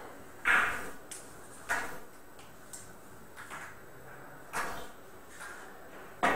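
Sharp clicks of billiard balls striking, a few seconds apart, each with a short ring, the loudest about half a second in and another just before the end.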